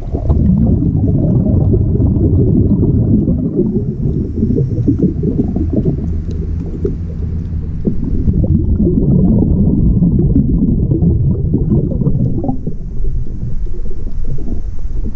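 Underwater noise picked up inside a GoPro's waterproof housing: a continuous muffled low rumble of moving water and a diver's breathing bubbles. A faint high hiss comes in about four seconds in and again near the end.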